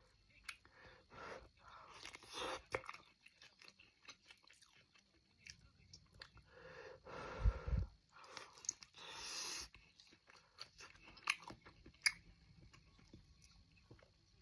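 Close-up chewing and biting of juicy air-fried chicken thigh, with scattered short wet mouth clicks. A deep thump about seven and a half seconds in.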